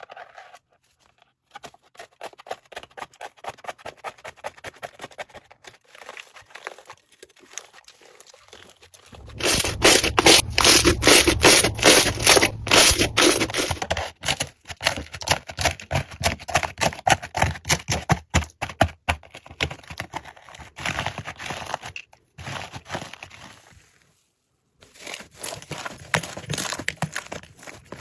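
Slime being squished and pressed, a dense run of small crackling pops and sticky clicks, loudest from about nine to fourteen seconds in, breaking off briefly twice near the end.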